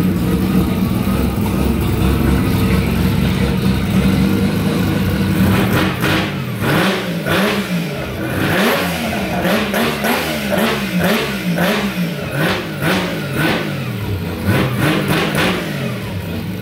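Turbocharged three-rotor rotary engine of a Mazda RX8 drift car idling steadily, then from about six seconds in being blipped over and over, the revs rising and falling about one and a half times a second.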